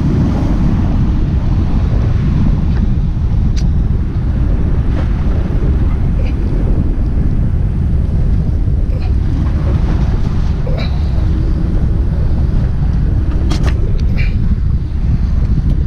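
Steady low wind rumble buffeting the microphone, with a few faint clicks scattered through it.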